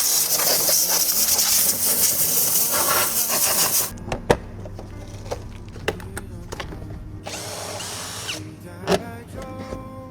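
Power tool running at length, spinning out fasteners as the engine is taken apart, then clicks and knocks of parts being handled, and a second shorter run of the tool about seven seconds in.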